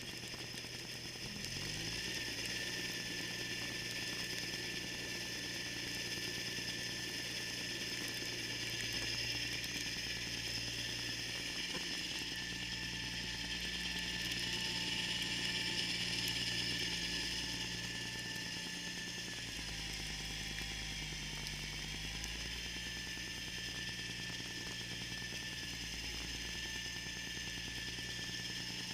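John Deere 318 garden tractor's engine running under load with its Model 49 snowblower's gearing and auger whirring. The engine picks up just under two seconds in, holds steady, and dips briefly in pitch around twenty seconds in before recovering.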